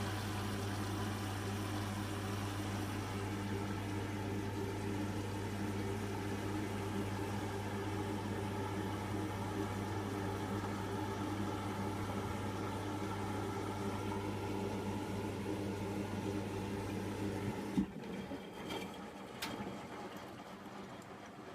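Hotpoint washing machine humming steadily mid-wash, before any spin, with water running through it. The hum stops suddenly about eighteen seconds in, followed by a couple of light clicks.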